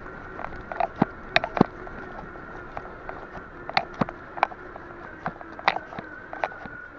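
Bicycle rolling along a paved path, its frame and parts rattling in sharp, irregular clicks, over a steady high whine.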